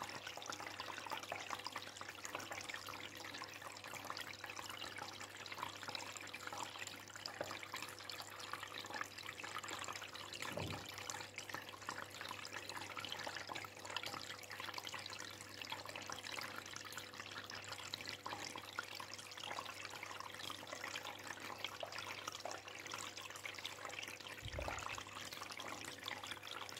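Steady trickling and bubbling of circulating water in a home aquarium, over a faint steady hum.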